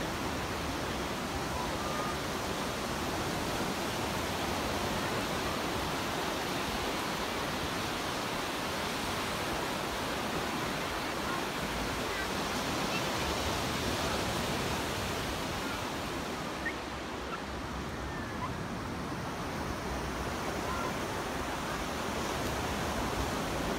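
Surf breaking on a sandy beach: a steady wash of waves, a little softer for a few seconds past the middle.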